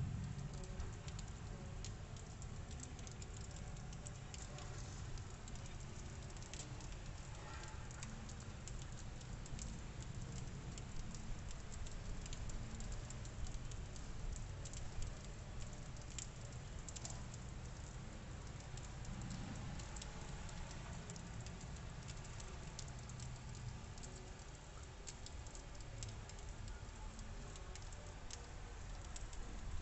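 Wet falling snow pattering and ticking irregularly on roofs and sills, over a steady low rumble.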